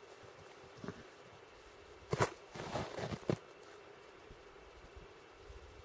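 Faint handling noise from a man working at a caught grayling with his hands: a few soft rustles and knocks, mostly between two and three and a half seconds in.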